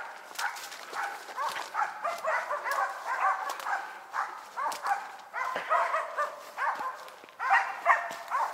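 Several hunting laikas barking rapidly and without a break, three or four barks a second, baying at game they have found. Faint footsteps on forest litter underneath.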